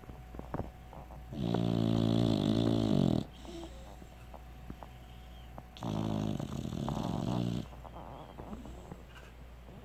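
American Bulldog puppy snoring in her sleep: two long snores, each lasting nearly two seconds, a few seconds apart.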